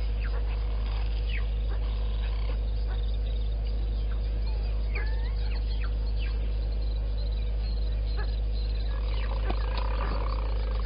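Wild birds calling around a waterhole: scattered short chirps, whistles and quick runs of repeated high notes. A brief rougher sound comes about nine seconds in. A steady low hum runs underneath.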